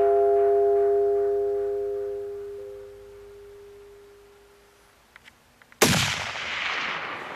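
The last chord of the background music rings out and fades away over the first four seconds or so. Near the end comes a single sudden, loud rifle shot with a long echoing tail.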